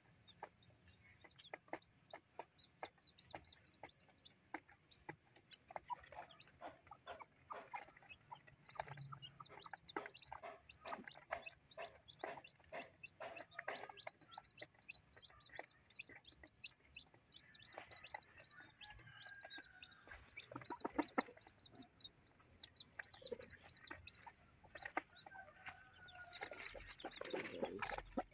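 Newly hatched native chicken chicks peeping and pecking grain off cardboard in many quick, light taps. Near the end the mother hen clucks, louder and lower.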